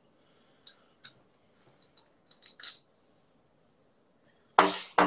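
A few faint clicks and taps of a phone being handled, then near the end a short, loud vocal burst from a man.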